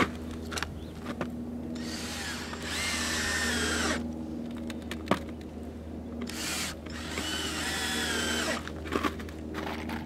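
Cordless drill driving screws into wooden boards in two runs of about two seconds each, the motor's whine dropping as each screw seats. A few sharp knocks of wood come in between.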